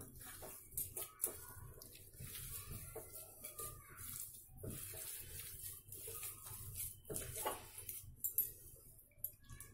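A hand mixing damp, crumbly flour-and-semolina dough in a glass bowl: faint, irregular squishing and rubbing with light clicks and taps against the glass.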